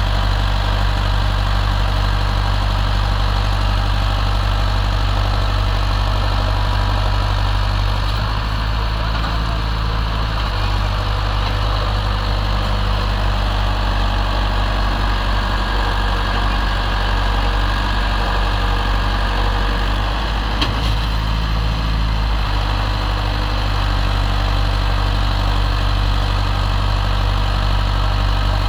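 Swaraj XM tractor's diesel engine running hard under load, pulling a fully loaded sand trailer through deep sand. From about eight seconds in the engine note shifts and turns rougher, then steadies again after about twenty-two seconds, with one sharp click just before.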